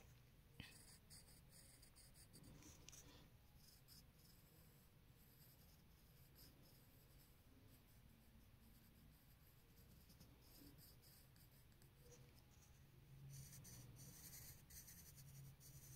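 Faint pencil strokes scratching on paper as hair is shaded in a sketch, a little louder near the end.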